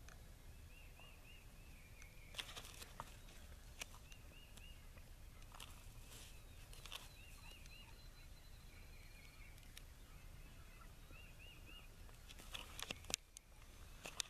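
Wild turkey toms gobbling in short loud bursts several times, the loudest about a second before the end. Between the gobbles come faint high notes in quick groups of three or four.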